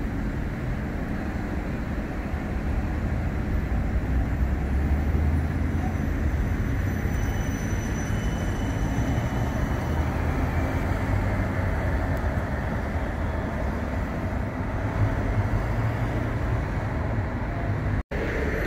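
CAF Urbos 100 tram running on its rails: a steady rumble of wheels and running gear, with a faint high whine for a few seconds in the middle.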